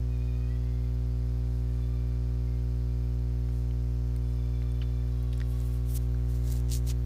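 Steady low electrical mains hum with its overtones, with a few faint clicks and short bursts of hiss about five to seven seconds in.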